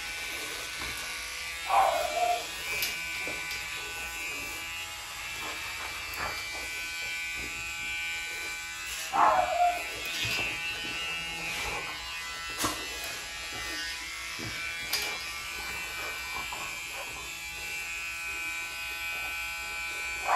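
A small electric nail grinder runs steadily with a constant whine as it files a French Bulldog's nails. The dog gives short whimpers about two seconds in and again about nine seconds in.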